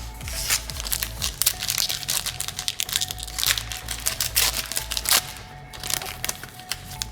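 Trading cards and their plastic pack wrapper being handled: a busy run of crinkling and sharp crackles, thickest in the middle and thinning near the end.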